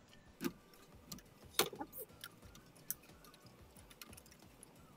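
Light, irregular metallic clicks and clinks of a socket wrench and extension bar on the oil filter housing cap as it is being unscrewed. The loudest clicks come about half a second and a second and a half in.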